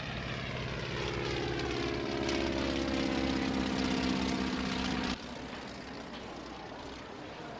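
An aircraft engine passing by, its pitch falling steadily as it goes. It cuts off suddenly about five seconds in, leaving a quieter hum.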